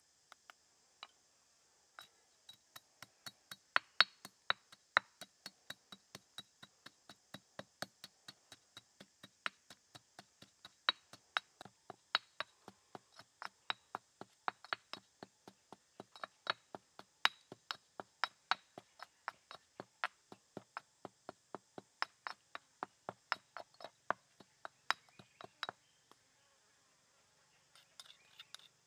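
Stone pestle pounding salt and dried chili in a stone mortar: sharp stone-on-stone knocks, about three a second, stopping about 26 seconds in. Near the end a metal spoon scrapes around in the mortar.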